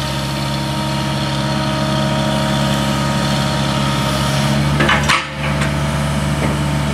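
Sumitomo SH75 excavator's diesel engine running steadily while the boom lifts and the upper structure slews. There is a brief clatter about five seconds in.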